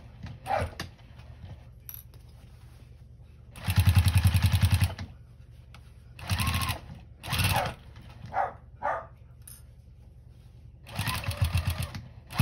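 Home sewing machine stitching through thick quilt layers of denim, batting and flannel binding in short stop-and-start runs: four runs, the longest and loudest a little over a second about four seconds in, the others near six and a half, seven and a half and eleven seconds.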